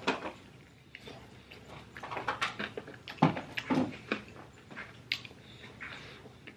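Close-up eating sounds of a person biting and chewing a sauced chicken wing: irregular wet mouth clicks and short chewing noises, a little louder in the middle.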